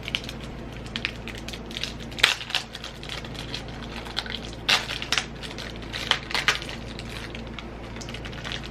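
Plastic snack wrapper crinkling and crackling irregularly as a packaged almond baklava is opened, with the sharpest crackles about two seconds and five seconds in.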